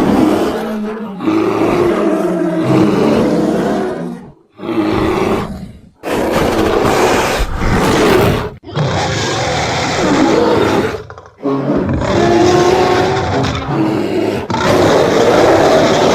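A string of loud roars, one after another, each lasting one to three seconds with brief breaks between them.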